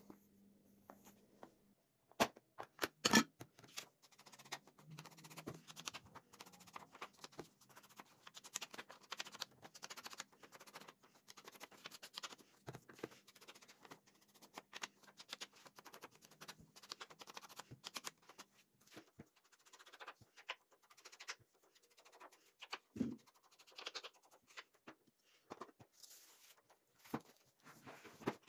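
A handmade paper journal being handled: pages and card rustle and scrape, with many small clicks and taps and one sharper knock about three seconds in.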